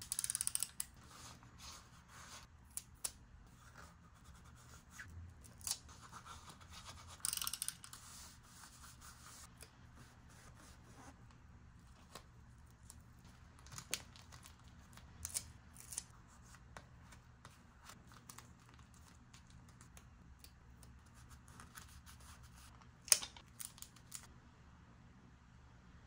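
Scissors cutting paper in short snips, with scattered light taps and paper handling between cuts and one sharp click near the end.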